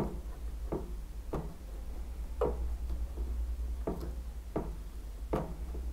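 Sharp plastic clicks from the controls of an Eachine TX16S radio transmitter as its sliders and switches are worked through their travel during calibration: about seven clicks at uneven spacing, roughly one a second, over a faint steady low hum.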